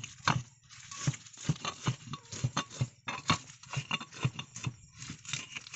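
Stone pestle knocking and grinding in a stone mortar (cobek) as green chilies, shallots and carrot are crushed for spice paste, in uneven strokes about two or three times a second.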